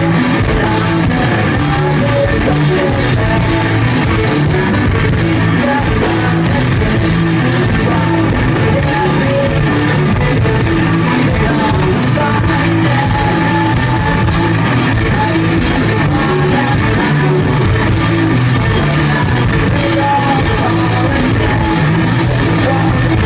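Live rock band playing loud and without a break: electric guitar, bass and drum kit, with singing.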